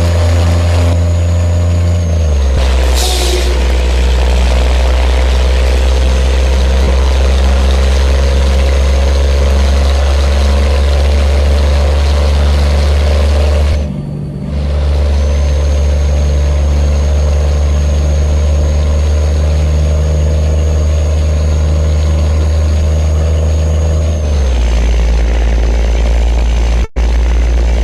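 Scania truck engine pulling under load, a loud steady deep drone that shifts in pitch a couple of times and dips briefly about halfway through.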